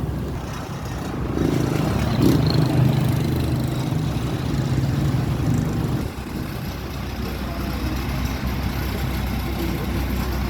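An engine running steadily with a low hum, a little louder for a few seconds after the first second or so.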